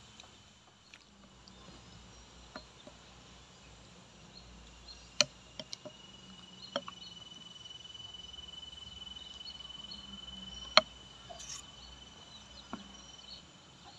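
Mostly quiet, with a few faint sharp clinks of a serving spoon against clay plates and a glass bowl, the loudest about eleven seconds in. A thin, steady, high insect trill runs for about four seconds in the middle.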